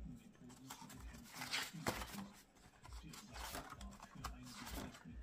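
Faint rustling and soft flicks of paper as the pages of a spiral-bound sketchbook are turned. The louder page turns come about a second and a half to two seconds in and again about three and a half seconds in.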